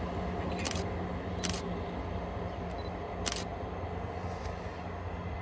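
ScotRail multiple-unit train pulling away, its engine running as a steady low hum that slowly fades. Three short sharp clicks come through it, under a second in, about a second and a half in, and just past three seconds.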